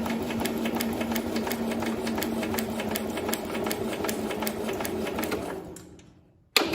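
The Cub Cadet 127's engine, with its cylinder head off, being cranked over by its starter. It makes a steady whine with regular ticking, winds down near the end, and is followed by a single clunk. It is cranking without compression, and no oil is pulling up while it turns.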